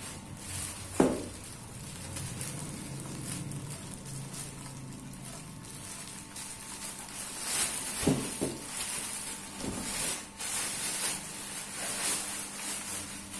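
Clear plastic packaging bags crinkling and rustling as metal tricycle frame parts are pulled out of them, busiest in the second half. Two sharp knocks, about a second in and about eight seconds in.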